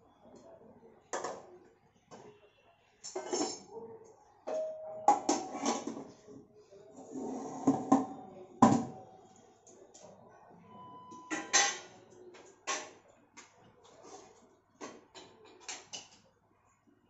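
Steel pots, dishes and utensils clinking and clattering in irregular clusters of sharp knocks, with a brief ring now and then.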